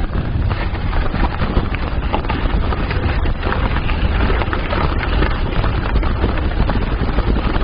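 Wind buffeting the microphone over the rumble of a bicycle being ridden on the road, with scattered small clicks and rattles.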